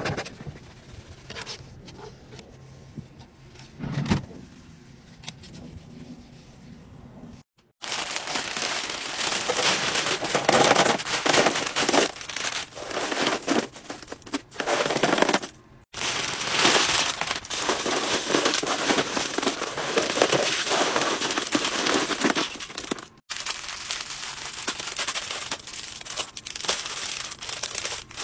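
For the first several seconds, a quieter rubbing of a damp disinfectant wipe scrubbing a drawer bottom, with a thump about four seconds in. Then, after a brief silence, loud crinkling and rattling of plastic-wrapped candies and candy packets being dumped and spread by hand in a drawer, with brief silent breaks twice more.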